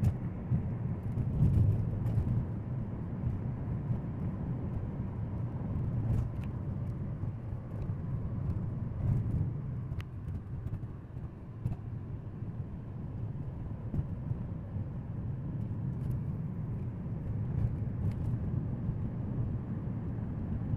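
Car cabin noise while driving: a steady low rumble of tyres on the road and the engine, heard from inside the car.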